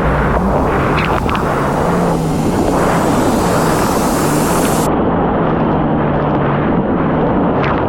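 Yamaha GP1800R SVHO personal watercraft under way at speed: the engine runs steadily with a wavering low drone under heavy wind and water rush on the microphone. The upper hiss cuts off abruptly about five seconds in.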